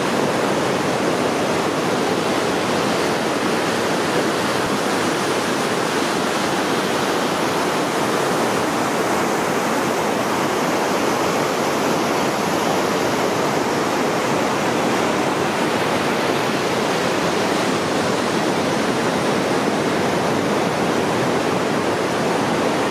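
River rapids rushing over rocks: a loud, steady rush of whitewater.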